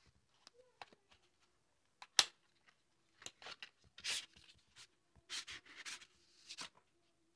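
A boxed DOMS drawing pencil set being opened by hand: one sharp click about two seconds in, then several short scraping, rustling strokes as the plastic pencil tray is slid out of its cardboard sleeve.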